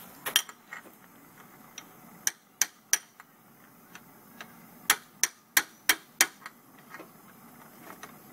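Hammer tapping: a dozen or so sharp, separate knocks, the loudest a run of five at about three a second just past the middle.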